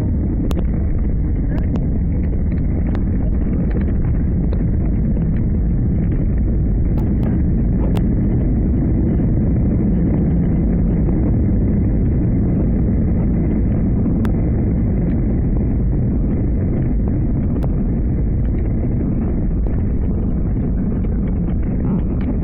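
Steady low rumble of an Airbus A319 rolling out on the runway just after touchdown, heard from inside the cabin and muffled by a covered microphone, with a few faint clicks.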